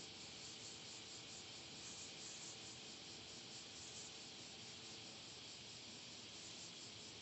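Near silence: a faint, steady hiss of background noise with no distinct sounds.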